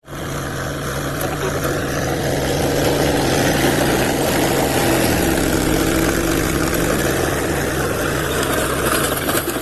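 Mahindra Novo 605 DI-i tractor engine running steadily under load while pulling a 7-foot Landforce rotavator, its blades churning the soil.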